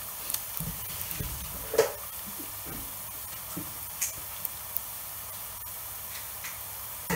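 Sliced onions frying in hot oil in a pot: a steady sizzling hiss with scattered small crackles and pops, and one louder click about two seconds in.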